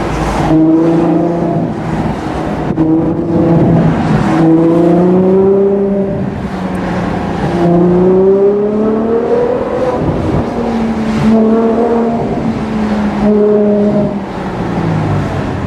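Ferrari 812 GTS's naturally aspirated 6.5-litre V12 pulling under acceleration, its pitch climbing several times and dropping back between gear changes, heard from inside the open-top car.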